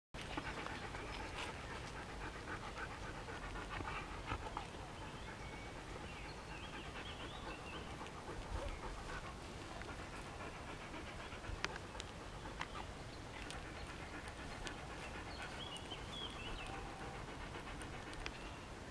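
A dog panting rapidly and steadily while it walks at heel.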